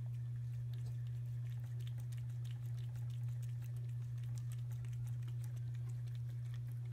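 A cat eating wet food from a metal can, chewing and lapping with many small, quick clicks, over a steady low hum.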